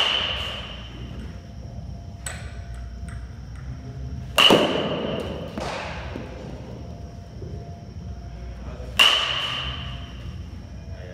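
Metal baseball bat hitting balls: three sharp pings with a short ringing tone, one right at the start and then about every four and a half seconds. Fainter knocks fall between the hits.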